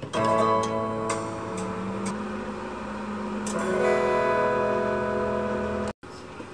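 Background music: strummed guitar chords ringing out, with a new chord struck about halfway through, cut off abruptly near the end.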